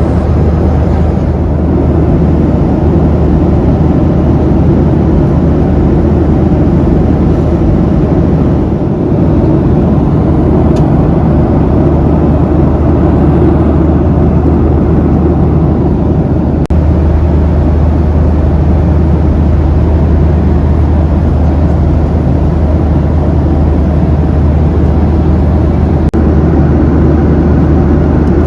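Steady cabin noise inside a Boeing 737-800 airliner in flight: a loud, even low rumble of the jet engines and the air rushing past the fuselage, with a few faint clicks.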